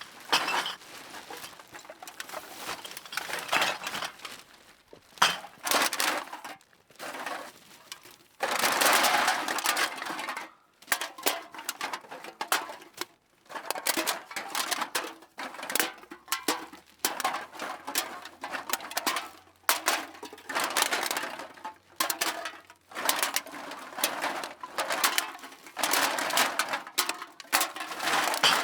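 Cans being put into a bag: irregular clinks and knocks of the cans against one another, with stretches of rustling from the bag, the longest about a third of the way in.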